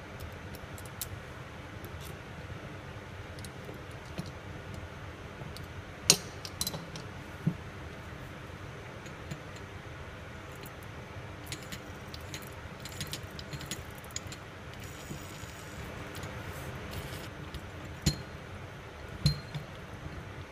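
Small metal clicks and clinks of an Allen key and small steel parts being handled on a stainless-steel wireline wheel tool, with a few sharper knocks about six seconds in and again near the end, over a steady background hiss.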